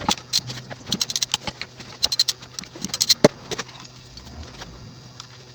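Metal clicking and clinking as the bolts holding the ring gear on a Mercedes W123 differential are undone with hand tools. The clicks are quick and irregular for about three and a half seconds, then die down.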